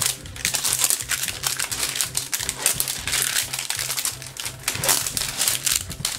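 Clear plastic shrink wrap crinkling and crackling as it is peeled by hand off a plastic Rainbocorns surprise egg, after its tear strip failed.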